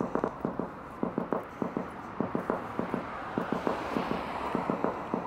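Microsoft Soundscape app's audio beacon: a fast, even run of drum beats, about four or five a second, signalling that the set destination lies off to the listener's left. Steady street noise lies underneath.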